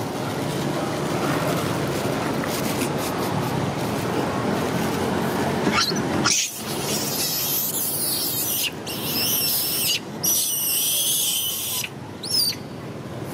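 Steady background noise, then near the end a long-tailed macaque's short, high squeal.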